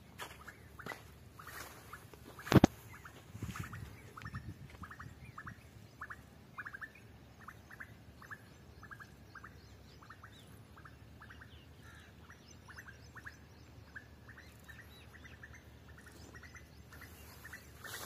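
Birds chirping repeatedly, a few short calls a second. A single sharp knock about two and a half seconds in is the loudest sound, with a low rustling just after it.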